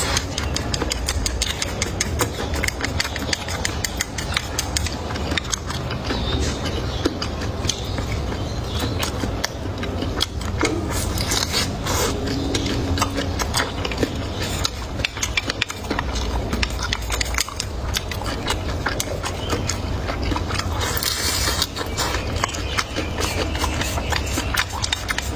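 Close-up chewing and crunching of food, a rapid, irregular crackle of small clicks, over a steady low hum.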